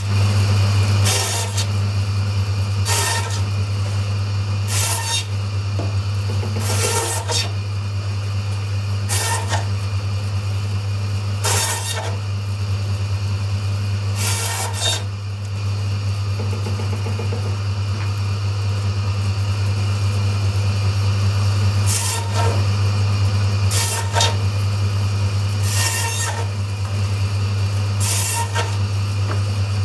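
Meat bandsaw running with a steady motor hum while its blade cuts a lamb loin into loin chops through the bone. There are about eleven short cuts, one roughly every two seconds, with a pause of several seconds midway.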